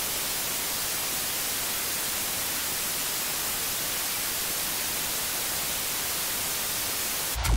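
Steady hiss of analog television static, used as a sound effect. Near the end a sudden low thump cuts in.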